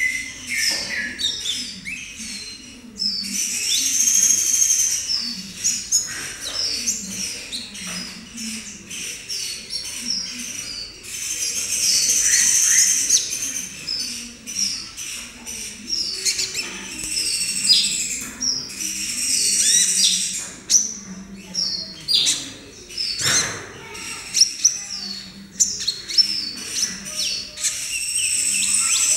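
Young Van Hasselt's sunbird (kolibri ninja) practising its song: bursts of high, rapid twittering chirps and trills, loosely strung together, the unfinished song of a juvenile learning to sing.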